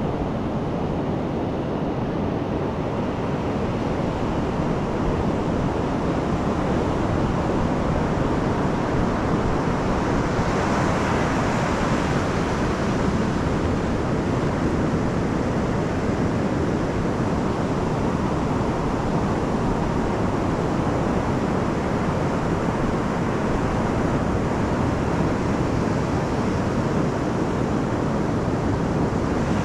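Pacific Ocean surf breaking and washing up over a flat sandy beach, a steady rushing noise that swells brighter as a wave comes in about ten seconds in.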